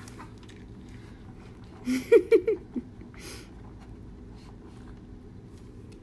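A small dog eating from its food bowl lets out a quick run of four or five short grunts about two seconds in, followed by a brief sniff.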